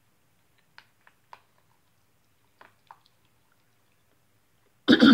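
Spoon scraping and clicking inside a foil MRE entrée pouch: a few faint ticks. Near the end comes a short, much louder sound that falls in pitch.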